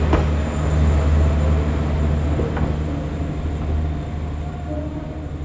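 JR Kyushu KiHa 47 diesel railcar moving off, its diesel engine's low drone fading steadily as the train draws away, with a light click or two from the running gear.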